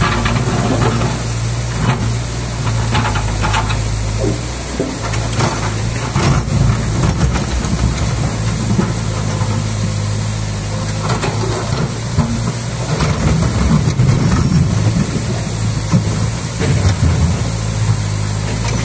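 Liebherr R 924 crawler excavator's diesel engine running with a steady hum, working harder in two stretches as the boom and bucket move, with a few short clanks. Fast river water rushes over the rocks underneath.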